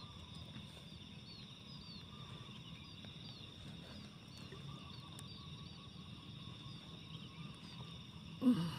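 Outdoor wetland ambience: a steady high insect drone, with a small bird giving short, high chirps about twice a second. A brief louder, lower sound comes near the end.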